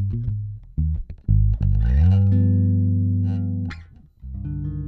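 Maruszczyk Elwood passive 30-inch short-scale jazz bass with nickel strings, played direct with no amp or effects: a few short plucked notes, then a slide up into a long held note about two seconds in that stops sharply. Near the end a new note rings out.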